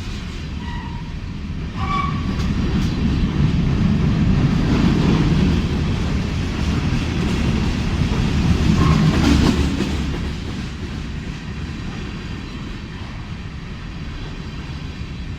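Ferrosur freight train rolling past on the rails: a steady low rumble with wheels clacking over the track. It grows louder a couple of seconds in and eases off after about ten seconds.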